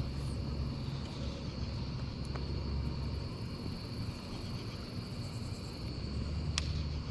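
Steady high chirring of a night insect chorus over a low, steady rumble that comes and goes. A single sharp click comes near the end.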